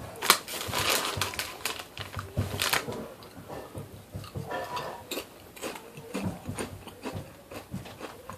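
Potato chips being bitten and chewed close to the microphone: irregular crisp crunches, the sharpest near the start and about two and a half seconds in.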